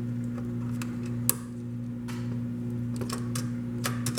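Plastic keycaps being pressed onto a mechanical keyboard's switches and the keys clicked, with a sharp click about a second in and a quick run of clicks near the end. A steady low electrical hum runs underneath.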